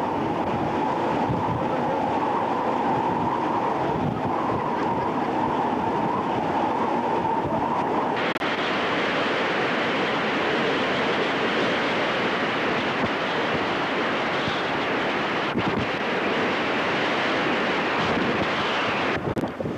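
Strong wind buffeting a camcorder microphone on a ship's open deck, over the rush of a rough sea. About eight seconds in, the noise turns suddenly brighter and hissier.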